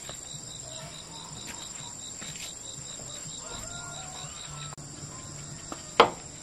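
Insects chirping steadily, a high continuous trill over a pulsing chirp that stops about five seconds in. A single sharp knock comes about six seconds in, the loudest sound here.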